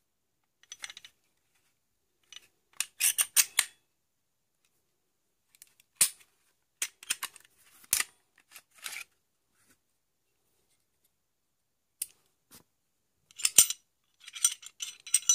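Sharp metallic clicks and snaps of a pistol slide's striker and firing pin being worked by hand, in several short clusters, loudest about three seconds in and again near the end.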